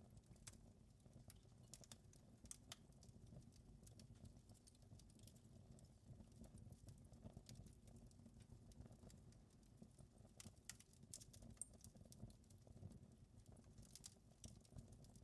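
Faint crackling of a wood fire: irregular sharp snaps and pops, thicker about a second before the end, over a low steady rumble of burning.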